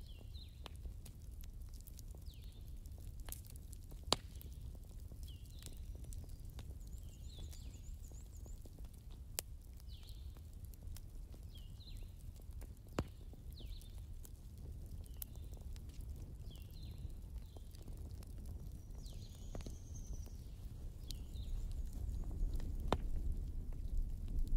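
Pen scratching on paper in short, irregular strokes, with a few sharp clicks and a low steady room hum underneath.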